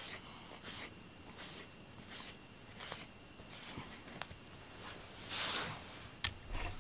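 Soft scratchy strokes of a brush through a cat's fur, repeating about once every 0.7 s, then stopping. A longer, louder rustle follows about five and a half seconds in.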